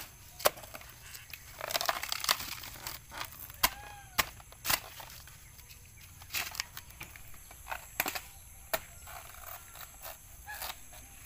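Cleaver cutting into a banana plant's trunk and peeling off its outer leaf sheaths: irregular sharp chops and knocks, with tearing and ripping of the fibrous layers in between.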